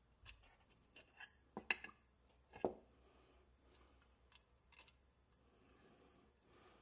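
Light metallic clicks and taps of steel tweezers and small metal parts against a tin toy boat's hull: a cluster of sharp clicks in the first three seconds, the loudest two about a second apart, then a few faint ticks.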